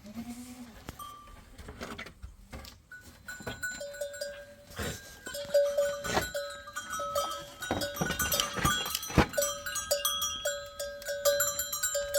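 Bells worn by a flock of goats and sheep clanking and ringing as the animals move, sparse at first and busier from about four seconds in.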